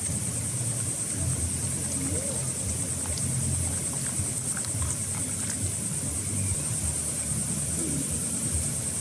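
Steady, high-pitched drone of insects chirring without a break, over a low, uneven rumble.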